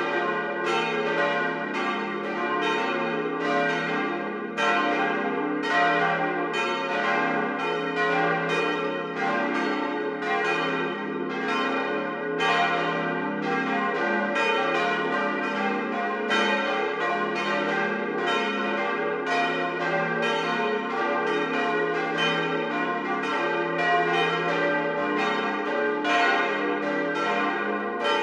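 Full peal of four steel church bells cast by the Böhler works in Kapfenberg, swinging together in a steady stream of overlapping strikes, each ringing on. This full peal (plenum) is rung only on the highest feast days.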